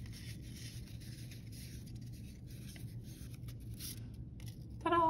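Faint rustling of a paper strip being rolled into a curl and released by hand, over a steady low hum. A brief voiced sound comes near the end.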